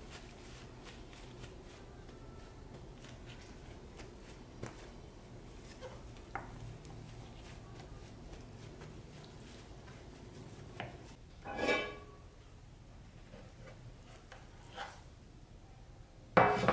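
Paper towel rustling and patting against the skin of a raw whole chicken on a wooden cutting board, with faint taps. There is a brief louder clatter about two-thirds of the way through. The loudest sound is a sharp knock just before the end as a heavy cast iron skillet is set down on the board.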